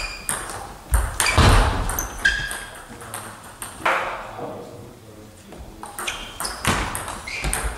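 Table tennis rally: a celluloid ball clicking off the bats and the table, each hit ringing briefly in the hall's echo. A heavier, deeper thump comes about a second and a half in.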